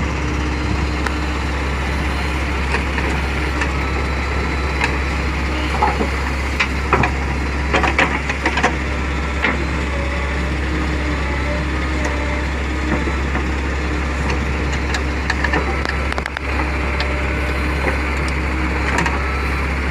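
Diesel engine of a JCB 3DX backhoe loader running steadily, with scattered knocks and clanks, a cluster of them in the middle.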